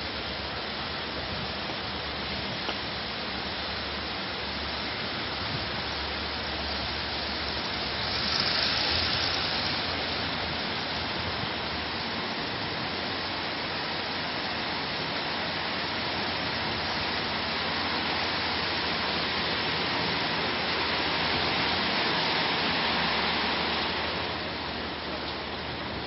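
Freight train wagons rolling past close by as the train pulls out: a steady rushing noise of wheels on the rails. It swells about eight seconds in and again a little past twenty seconds.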